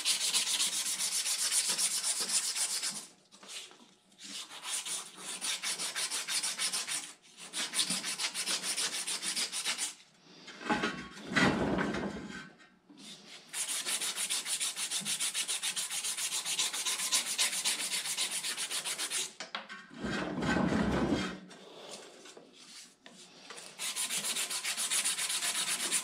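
Steady rapid scrubbing on a metal sawmill part, in long spells of several seconds with short pauses between them, as the part is cleaned up by hand. Twice a duller knock or shuffle of handling breaks in.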